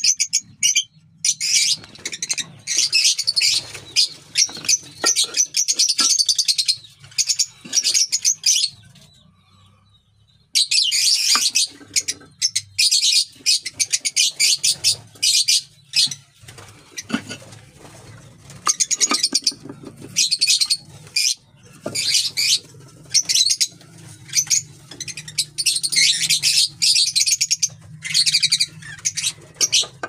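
Lovebirds chattering in rapid, high-pitched chirps, in bursts of one to several seconds, with a pause about nine seconds in.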